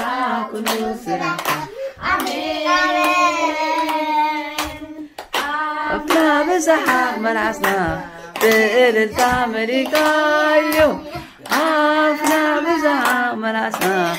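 Young children singing a song together, with hand claps keeping time.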